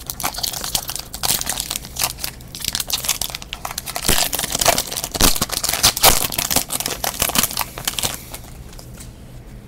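Foil wrapper of a football trading-card pack being torn open and crinkled by hand: a dense crackling with sharp snaps that stops about eight seconds in.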